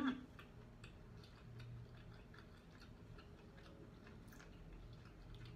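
Faint small clicks at uneven spacing over a low steady hum, with one short louder sound right at the start.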